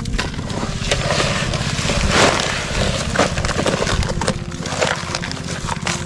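Wet, gritty sand being scooped and scraped by hand out of a plastic toy dump truck's bed, in irregular crunching, squelching scrapes, loudest about two seconds in.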